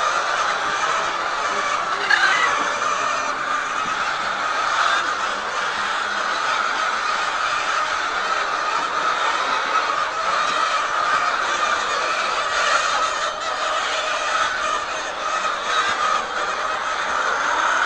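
Steady din of many hens clucking and calling together in a poultry house.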